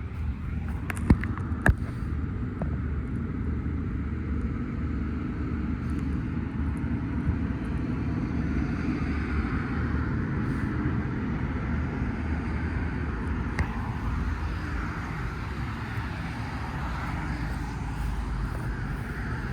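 Steady low vehicle rumble, with two sharp clicks a little over a second in and another about two-thirds of the way through.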